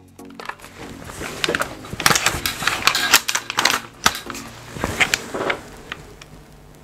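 UHC Super X9 airsoft bolt-action sniper rifle being handled and readied to fire with its gas bolt fitted: a run of irregular sharp clicks and rattles from the action and fittings.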